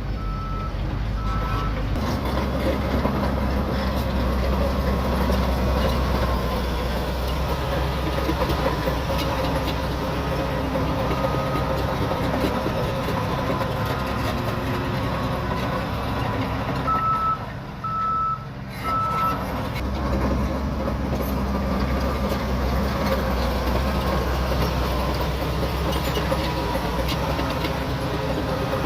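Shantui DH17C3 bulldozer's diesel engine running steadily under work, with its reverse alarm beeping in short evenly spaced beeps near the start and three more about two-thirds of the way through, as the dozer backs up.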